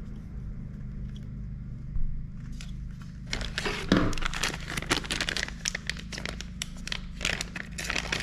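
Plastic packaging crinkling and rustling as small accessory parts are unwrapped and handled, starting about three seconds in with dense rapid crackles.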